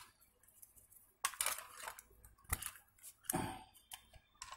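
Handling noise from a Nokia phone charger's thin cable being worked in the fingers: short scratchy rustles with a few sharp clicks in between, the loudest click near the end.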